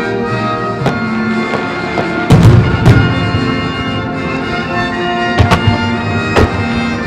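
Orchestral-style music with long held notes, played over the show's loudspeakers and cut by the sharp bangs of firework shells bursting. The loudest bangs fall about two and a half to three seconds in, with a few more later on.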